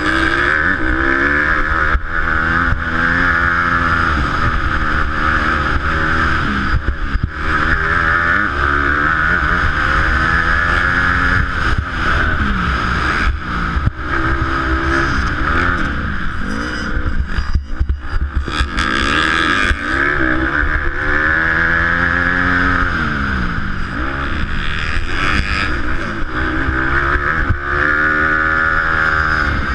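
Honda dirt bike engine on the race track, heard from the rider's helmet: revs climb and fall again and again as the rider works the throttle and gears, with several short throttle-offs. A steady rushing noise from wind on the helmet microphone runs underneath.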